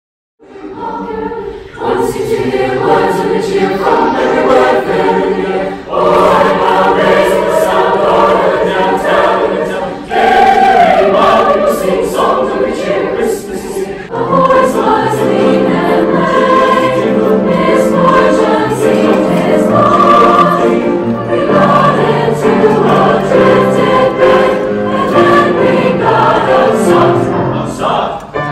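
A high school choir singing a song at a Christmas concert, many voices together, starting about half a second in.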